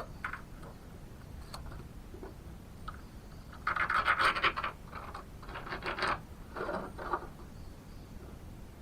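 Rough scraping or scratching strokes in three bursts, the first and loudest about four seconds in, with a few faint ticks before them.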